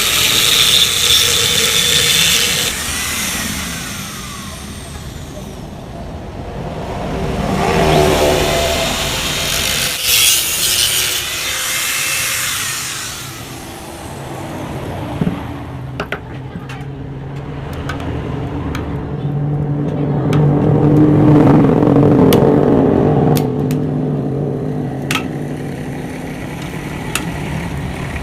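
Angle grinder cutting into the steel exhaust muffler of a Yamaha RX-King during the opening-up of the muffler, in several loud spells with its whine falling away as it spins down. Sharp metallic clicks and knocks follow in the later part.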